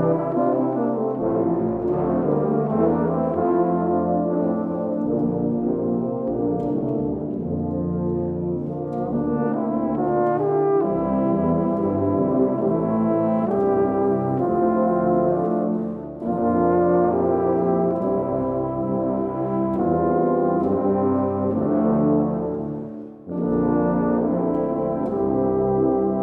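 Tuba and euphonium ensemble playing together: full, sustained low-brass chords with moving lines. The sound eases briefly about two-thirds of the way through and breaks off for a moment shortly before the end, then the whole ensemble comes back in.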